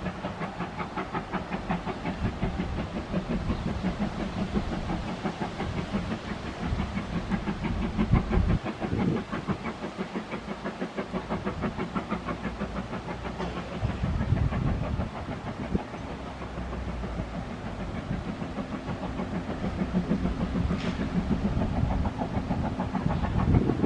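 A railway locomotive working close by: a steady, rapid, rhythmic beat of about four pulses a second over a low hum.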